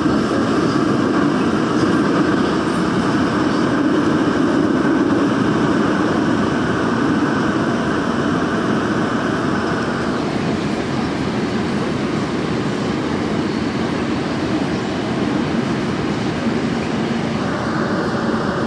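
Daejeon Metro Line 1 subway train running through a tunnel: a steady rumble of wheels on rail, with a higher hiss that drops away about ten seconds in and returns near the end.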